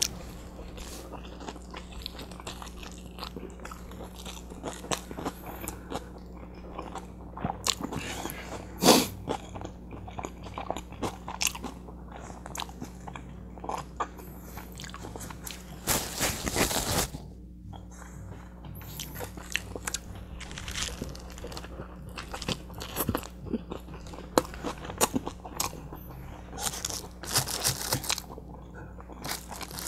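A person biting into and chewing a large butter chicken burrito close to the microphone: a steady run of short, sharp crunches and mouth sounds, with one louder crunch about nine seconds in and a longer noisy stretch of about a second just after halfway.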